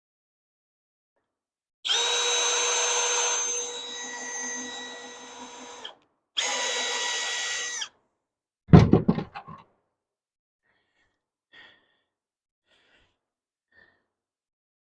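Cordless drill running twice while drilling pilot holes in cedar fence pickets: a steady whine of about four seconds, then a shorter one of about a second and a half. A short clatter of knocks follows.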